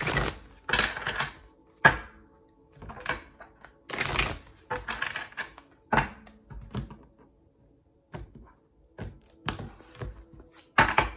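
Oracle cards being shuffled and handled by hand: irregular bursts of card rustling and sharp slaps of cards against each other and the desk, a second or two apart.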